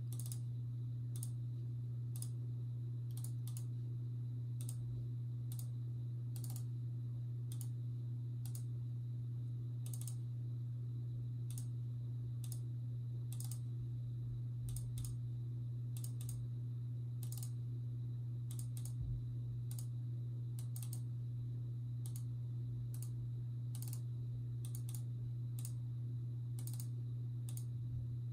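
Light clicking at a computer, irregular, about one or two clicks a second, over a steady low hum.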